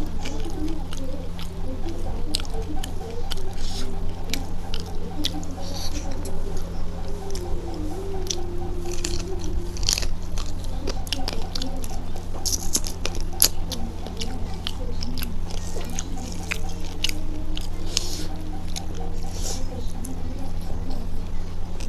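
Close-miked wet chewing and lip smacking of a person eating mouthfuls of rice and curry by hand, irregular clicks and smacks throughout, over a steady low hum.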